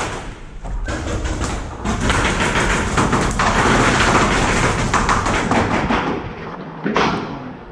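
Rapid paintball fire echoing in an indoor arena: a dense run of quick thuds and taps from markers shooting and balls striking wooden walls, heaviest in the middle and easing off near the end.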